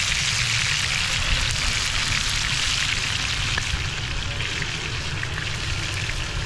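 Chicken pieces frying in hot oil in a frying pan, with a steady sizzle.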